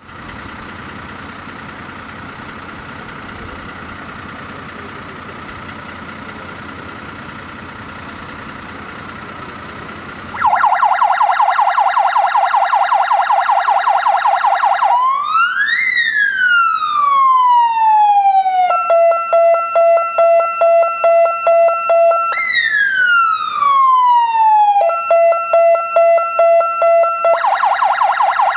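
Electronic siren of a MAN TGM fire engine, starting after about ten seconds of steady background noise. It opens with a fast warble, then alternates long sweeps that rise quickly and fall slowly with a pulsing steady tone, and returns to the fast warble near the end.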